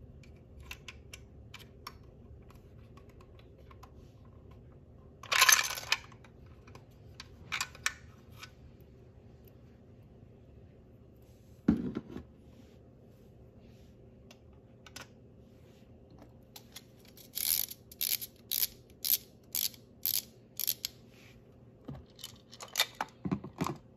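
Small plastic toys handled on a tabletop: scattered clicks and taps, a short rattle about five seconds in, a dull thump near the middle, then a run of about ten evenly spaced clicks, roughly three a second, and a few more knocks near the end.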